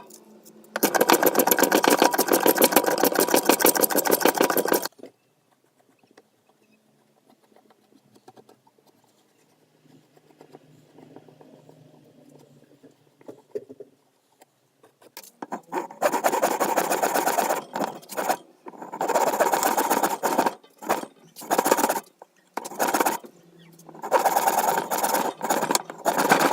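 A workshop tool working material in bursts of a few seconds, with a fast, even chatter, and near quiet between the bursts.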